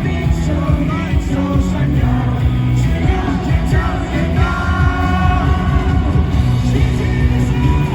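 Live rock band performing a fast pop-rock song, with a male lead singer over loud, steady drums, guitars and bass.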